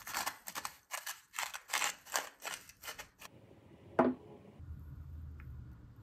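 A hand-turned salt grinder being twisted, about a dozen quick grinding strokes over three seconds, then one sharp knock as it is set down on the wooden table.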